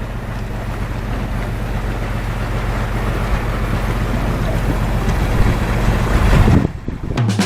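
Boat engine running steadily under wind and water noise; the sound breaks off near the end.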